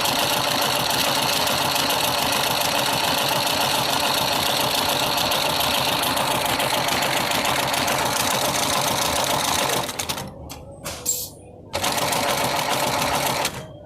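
LX-08 hemp rope sole pattern sewing machine running steadily as it stitches. It stops about ten seconds in, makes a few short sounds, runs again for about two seconds, then stops near the end.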